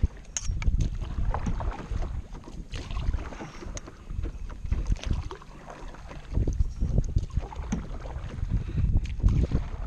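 Wind rumbling on the microphone while a canoe is paddled into the wind, with irregular splashes and knocks from the paddle strokes.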